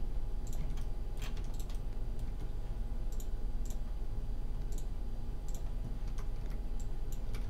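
Scattered, irregular clicks of a computer keyboard's keys and mouse buttons being pressed, over a steady low electrical hum.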